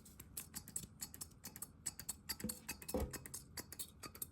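Hand oil sprayer pumped over and over onto pressed boiled potatoes: a faint run of quick, irregular clicks and short spritzes, with a soft knock about three seconds in.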